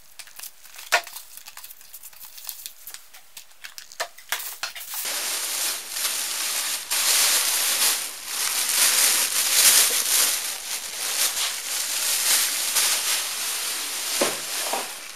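A few light clicks and rustles as a clear plastic parts box is handled. Then, from about five seconds in, a thin plastic bag crinkles loudly and without a break as it is lifted and handled, until shortly before the end.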